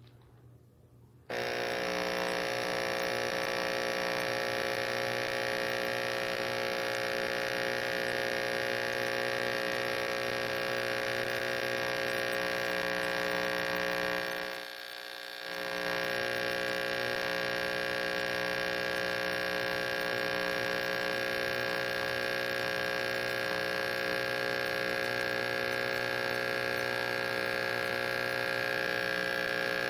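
Pressure washer running with a steady, even hum. It starts abruptly just over a second in and dips briefly about halfway through before carrying on.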